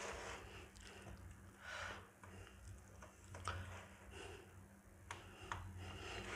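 Faint rolling and pressing of a pizza cutter wheel through soft dough against a wooden chopping board, with a few light clicks.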